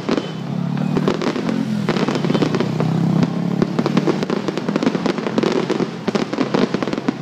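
Fireworks bursting close by: a dense, continuous run of bangs and crackling, many reports a second, from exploding shells and crackling stars.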